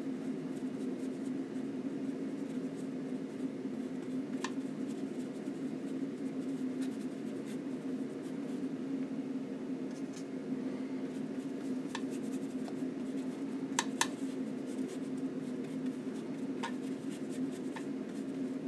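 Paintbrush working oil paint on a linen panel: faint scratchy strokes and a few light taps, the loudest a double tap about fourteen seconds in, over a steady low hum.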